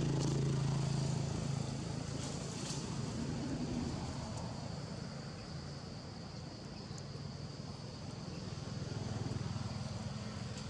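Steady low hum of a motor vehicle engine running at some distance. It is strongest in the first two seconds, dips midway and swells again near the end.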